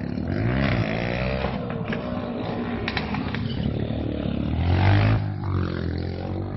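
Motorcycle engine revving up and down as the bike rides close by, loudest about five seconds in.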